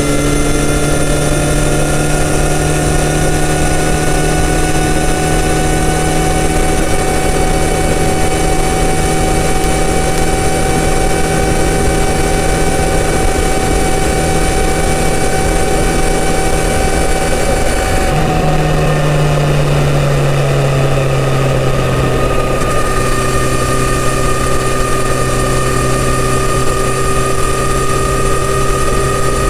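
Kawasaki Z900RS's 948 cc inline-four on its stock full exhaust system, running steadily at highway cruising speed over a low rush of wind. About 18 seconds in the engine note drops and settles at a lower steady pitch.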